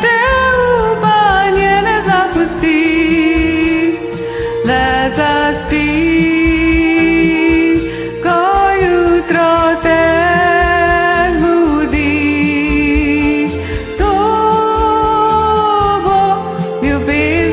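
A woman singing long held notes with vibrato over a karaoke pop backing track.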